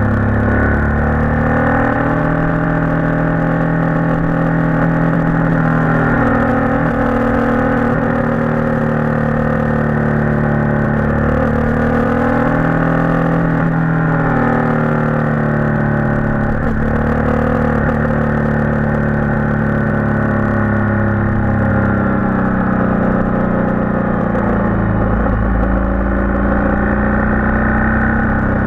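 Motorcycle engine running on a downhill mountain road, its pitch falling and rising gently several times as the rider eases off and picks up speed through the bends.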